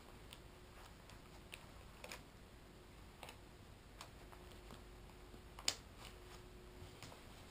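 Faint, scattered clicks and taps of a climbing harness's metal waist-belt buckle and hardware being handled, with one sharper click about five and a half seconds in.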